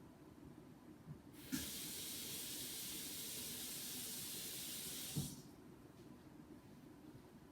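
Water running from a tap for about four seconds, starting and stopping abruptly, with a click as it is turned on and again as it is turned off.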